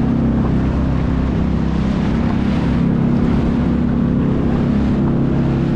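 Sea-Doo jet ski engine running steadily at cruising speed over the ocean, with a rush of wind and water.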